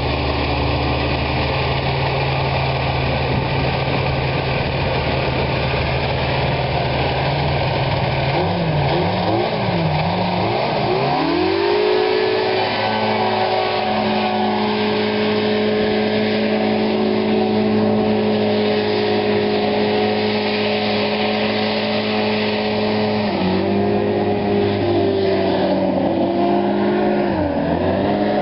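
Rescue hovercraft's engine and lift fan running steadily at low power, revved up and down a few times, then climbing to a higher steady pitch about twelve seconds in as the craft hovers off. Its pitch drops slightly later on and dips twice near the end.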